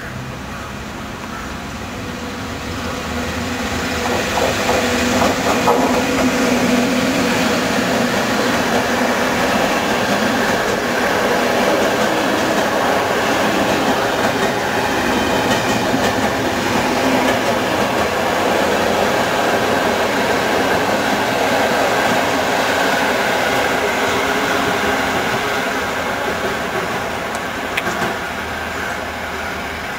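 A PKP EU07/EP07-class electric locomotive hauling a passenger train past at speed. The sound builds with a low hum as the locomotive goes by, then settles into a long, steady rumble and clatter of coach wheels on the rails, fading toward the end with one sharp knock.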